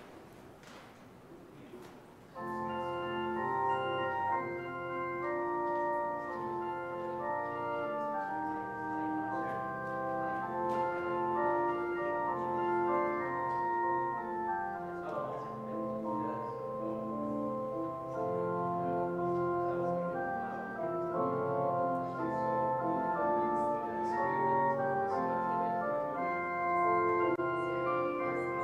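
Church organ playing a slow piece in sustained chords, which begin about two seconds in after a moment of quiet room noise.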